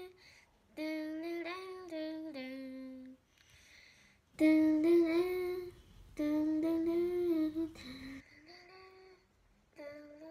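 A child humming a wordless 'dun dun dun' tune in three or four held, sliding phrases with short breaks between them.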